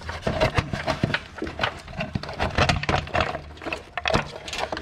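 Irregular clicks, knocks and rattles of hand tools and small metal parts being handled, over a low steady hum.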